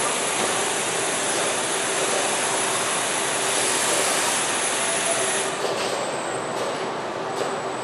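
Steady hiss and hum of a robotic car-body assembly line, with a faint high whine that stops about five and a half seconds in.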